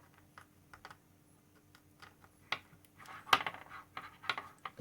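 Cherry MX key switches being pushed into a keyboard circuit board: a scatter of small, hard plastic clicks and clinks, sparse at first and busier in the second half.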